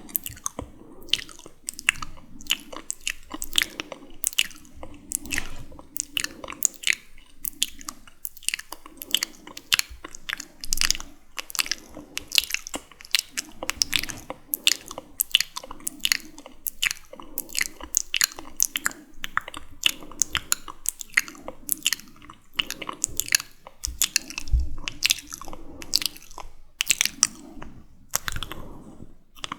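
Close-miked wet, sticky mouth sounds: rapid smacking and clicking of lips and tongue, several clicks a second.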